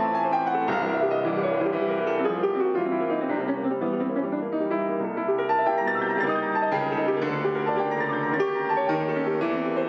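Fazioli F212 grand piano played with both hands: fast, flowing runs over held chords, with a long descending run over the first four seconds that then climbs again.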